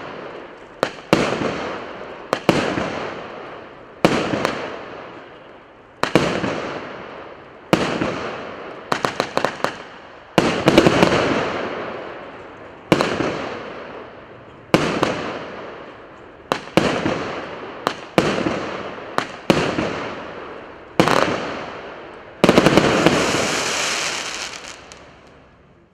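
Multi-shot consumer firework battery firing shot after shot: a sharp bang every one to two seconds, each trailing off slowly, with a quick flurry of cracks about nine seconds in and a longer hissing, crackling burst near the end.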